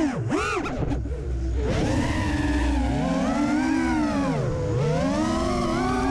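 FPV quadcopter's 2207.5 1900KV brushless motors and 5-inch propellers whining in flight. The pitch swoops down and up several times in quick succession in the first second, then rises and falls in long sweeps, with deep dips near the middle and again near the end as the throttle is worked.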